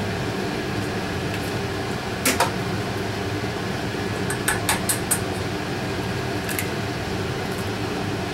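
Eggs being cracked and separated by hand over stainless steel bowls: a sharp crack about two seconds in, then a quick cluster of cracks and taps in the middle and one more a little later. Under it runs a steady mechanical hum like a fan.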